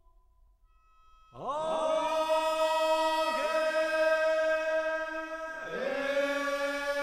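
A chanting voice holding long, steady tones, starting about a second and a half in. It makes three held phrases, each opening with a quick upward swoop in pitch.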